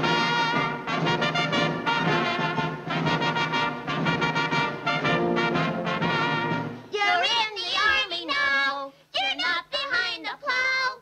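Orchestral cartoon score with brass playing a bold theme. About seven seconds in the full orchestra drops away and cartoon characters' voices take over, with short gaps between phrases.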